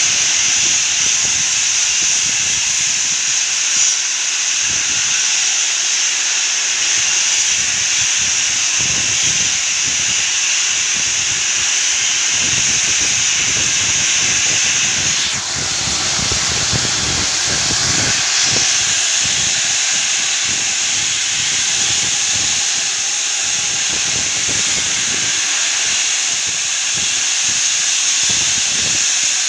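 Steam locomotive 3801, a NSW C38 class Pacific, blowing off steam: a loud, steady hiss that briefly dips about halfway through.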